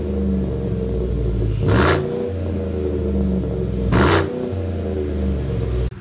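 2018 Chevy Silverado's 5.3-litre V8 idling through a single exhaust with a Flowmaster Super 10 in place of the stock muffler and the resonator removed. It is revved in two short blips, about two seconds in and again about four seconds in. The sound cuts off suddenly near the end.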